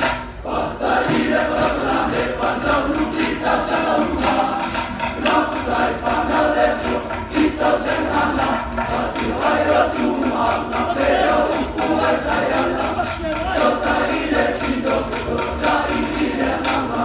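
A large group of young men singing together in unison, loud and continuous, over a steady sharp percussive beat several times a second.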